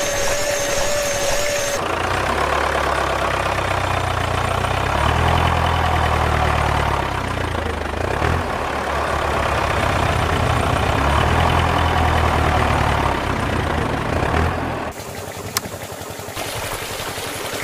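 A small electric water-pump motor whines steadily with water spraying for about the first two seconds. Then a tractor engine sound runs for about thirteen seconds, its pitch rising and falling a few times, before it gives way to quieter water trickling and a single click near the end.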